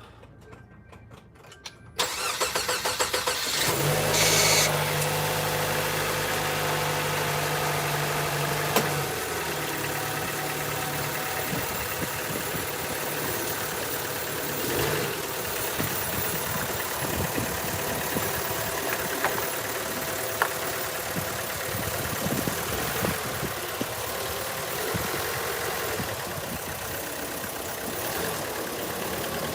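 Hyundai Sonata engine cranking and catching about two seconds in, then running at a raised idle whose steady note drops about nine seconds in as it settles into a steady idle.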